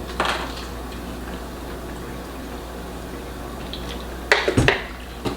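Wet, squishy eating sounds as fufu and soup are handled and eaten, with a short cluster of louder noisy bursts about four and a half seconds in.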